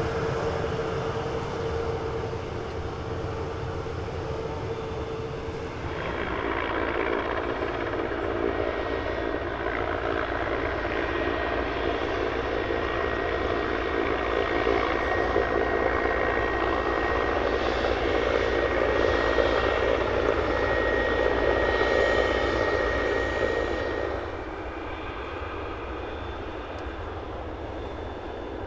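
Aircraft engines running at an airfield: a steady rushing noise with a held whine. The sound shifts about six seconds in, a thin high whine holds through the middle, and it drops off in level near the end.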